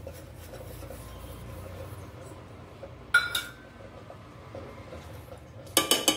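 Steel utensils clinking against a stainless steel pot as jaggery is tipped in from a steel cup: one sharp metallic clink about three seconds in and a quick cluster of clinks near the end.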